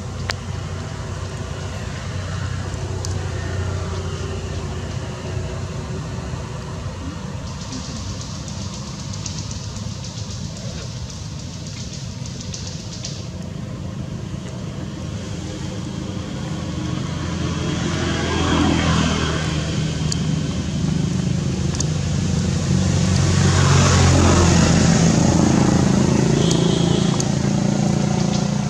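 Road traffic: a steady low engine drone that swells as vehicles pass, once about two-thirds of the way in and again, loudest, near the end.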